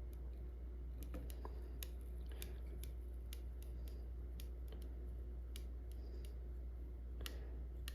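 Scattered faint clicks and ticks as a plastic screen protector film is worked loose with a razor blade on the scanner's glass bed, over a steady low hum.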